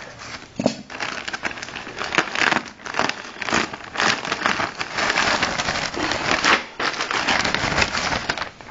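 Thin plastic mailing bag crinkling and rustling as a hand works inside it and pulls out the contents: a dense run of irregular crackles, with a brief lull near the end.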